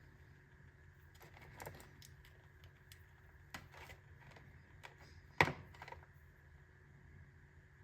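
Scattered small clicks and knocks of an object being handled, with one sharper click a little past halfway.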